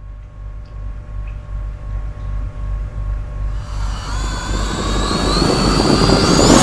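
A jet-like rumble with a rising whine that swells steadily louder, its high tones climbing in pitch over the second half, like an aircraft approaching.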